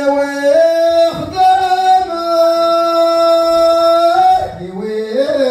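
A man sings long held notes into a microphone, unaccompanied, his amplified voice stepping up in pitch twice in the first second. The long final note ends about four seconds in.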